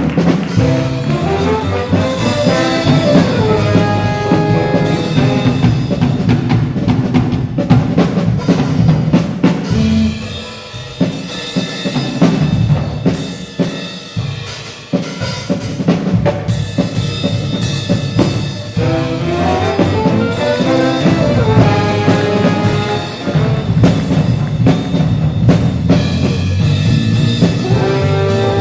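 Live jazz ensemble playing: brass section over a drum kit with a steady beat. The band thins out and drops in level for a few seconds in the middle, then the full ensemble comes back in.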